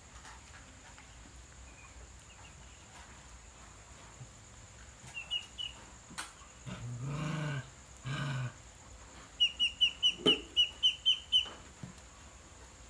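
Ducklings peeping. A few high peeps come about halfway through, then a fast run of about a dozen loud, short peeps near the end. Between them come two low drawn-out sounds, one about a second long and one shorter.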